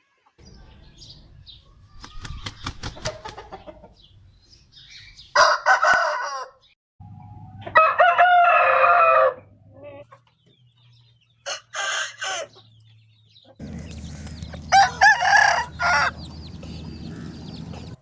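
Aseel roosters crowing: four separate long crows, each from a different recording, with a run of sharp clicks before the first.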